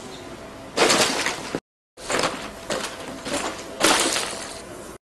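Crashing, smashing impacts as ramen cups and shop goods are knocked over and broken. There is one crash about a second in, a brief cut to silence, then a run of four more crashes, each trailing off in a noisy wash.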